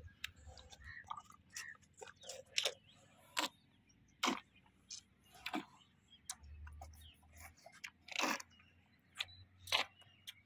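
A calf drinking thinned buttermilk from a plastic tub: faint, irregular slurps and wet clicks, roughly a second apart.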